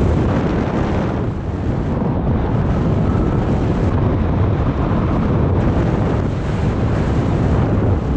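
Wind rushing over the camera microphone of a paraglider in flight: a steady, loud rush of air, heaviest in the bass, easing slightly about a second in.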